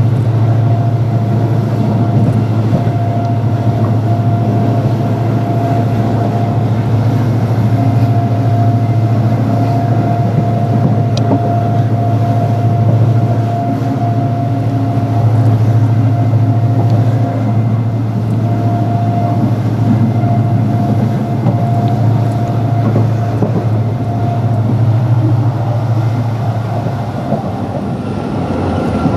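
Diesel-hauled passenger train running, heard from aboard: a loud, steady low drone with a steady higher tone over it and a rushing noise, the drone easing near the end.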